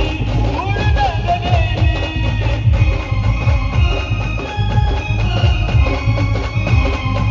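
Marathi band music: a heavy, steady drum beat under sustained melody lines, with a sung phrase about a second in.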